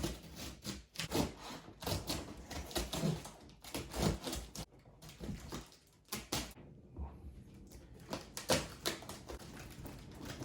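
Cardboard shipping box being opened and handled: irregular clicks, knocks, scrapes and rustling of the flaps and packing.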